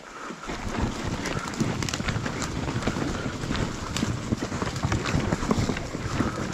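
Enduro dirt bike rolling down a rough forest single track: a dense, irregular run of knocks, clatter and brush swishing from tyres, suspension and chassis over roots and ground, starting about half a second in, with no clear engine note.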